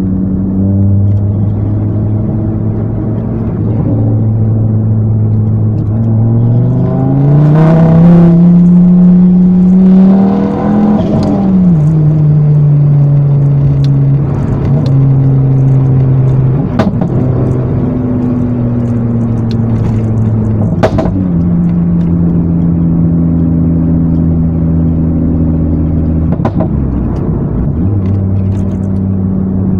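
Ford Focus ST 225 Mk2's tuned turbocharged five-cylinder engine, heard from inside the cabin while driving. It cruises steadily, then revs climb smoothly under acceleration about a third of the way in and drop back suddenly, before it settles into a steady cruise again. A couple of sharp clicks come later.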